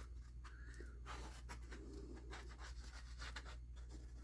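Faint rubbing and scratching of paper being glued down and smoothed by hand, with small ticks of paper handling and a low steady hum underneath.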